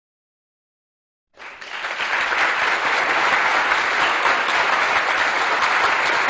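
Applause from many people clapping, coming in after a second or so of complete silence, swelling quickly and then holding steady.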